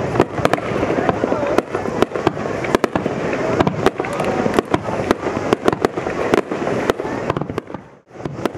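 Fireworks display: a rapid run of sharp bangs from bursting shells, several a second, over continuous crackling. The sound drops away briefly near the end, then returns.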